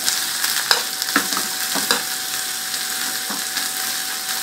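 Sliced onions sizzling in hot oil in a non-stick frying pan for a tarka, stirred with a wooden spoon: a steady frying hiss with a few knocks and scrapes of the spoon against the pan, mostly in the first two seconds.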